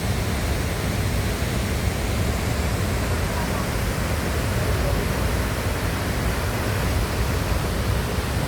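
Waterfall's falling water rushing steadily, a constant even roar with no breaks.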